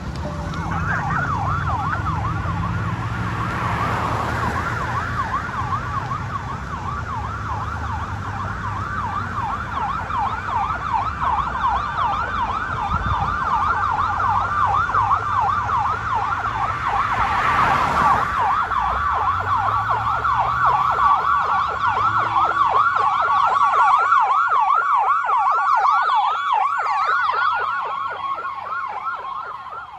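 Emergency vehicle's electronic siren on a fast yelp, sweeping up and down several times a second, with the vehicle's engine rumbling underneath. The engine drops away a few seconds before the end while the siren carries on.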